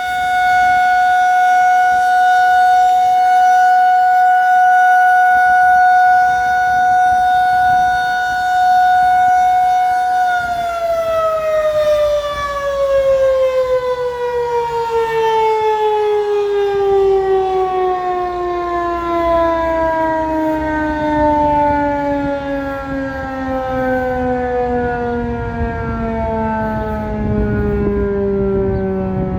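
Federal Signal 2001-SRN outdoor warning siren sounding the steady tone of a one-minute alert test, then about ten seconds in shutting off and winding down, its pitch falling slowly.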